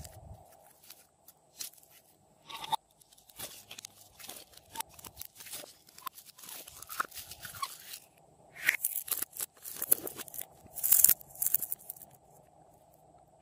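Hands working slime and a thin plastic bottle: irregular sticky clicks and crackles of stretched and squeezed slime mixed with plastic crinkling, with the loudest run of crunches in the second half.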